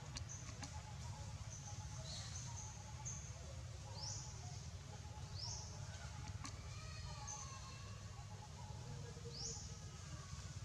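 Faint, short, high-pitched animal calls: rising chirps and brief high notes every second or two, with a fainter wavering call about seven seconds in, over a steady low background noise.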